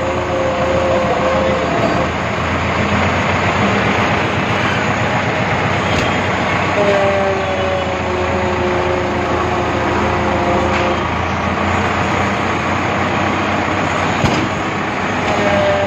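HMT 5911 tractor's diesel engine running steadily. A two-note whine comes and goes a few times over it, and there are two single sharp clicks.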